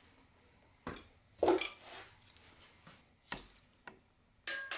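Metal clanks of bolts and hand tools on a Subaru EJ22T engine case as the last case bolts go in: several separate knocks, the loudest about one and a half seconds in, and a short metallic ring near the end.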